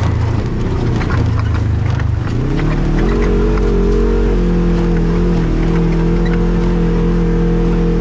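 Off-road vehicle engine running on a trail ride, its pitch climbing about two to three seconds in and then holding steady, with scattered clicks and knocks over it.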